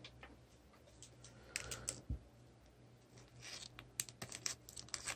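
Faint scratchy clicks and rustles of a thick trading card being handled and slid into a clear plastic sleeve, in two clusters: about a second and a half in, and again from about three and a half seconds.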